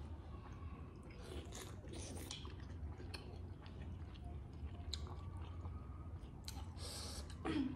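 Two people chewing steamed momos, with soft wet mouth smacks and clicks as they eat by hand. Near the end a short voice sound sliding down in pitch is the loudest thing.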